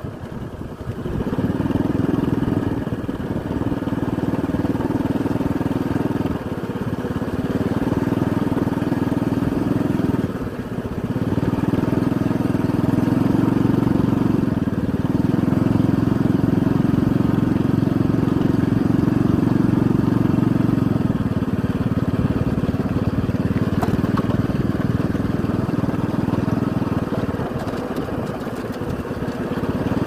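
Motorcycle engine running steadily while riding, easing off briefly several times and then picking up again.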